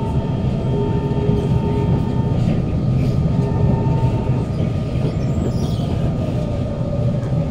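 Kawasaki Heavy Industries C151 metro train running at steady speed, heard from inside the carriage: a steady rumble of wheels on rail with a steady whine from its GTO-VVVF traction motors. A few brief higher tones come and go.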